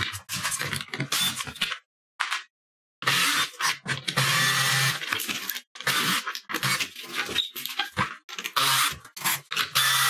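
Cordless drill-driver backing out the screws that hold a plastic skirting board, in a series of short stop-start runs. There is a pause of about a second about two seconds in.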